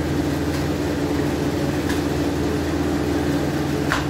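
Clay mixing machine running with a steady hum. A few light knocks sound over it, the sharpest near the end.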